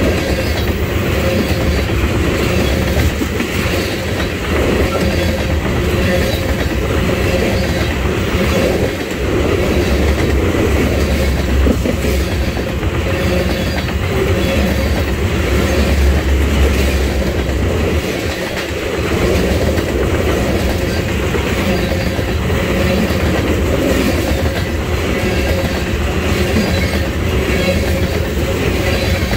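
Railroad tank cars of a freight oil train rolling past close by: a steady rumble of steel wheels on rail with a rhythmic clatter as the trucks pass over the track. The low rumble swells for several seconds midway.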